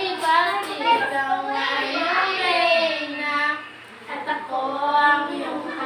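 Young girls' voices singing a short tune with held, drawn-out notes, breaking off briefly a little past halfway and then going on.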